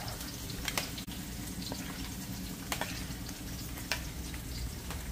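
Metal spoon stirring and scraping curry masala paste in a ceramic plate, with a few light clicks of the spoon against the plate, over a faint steady frying in the pot.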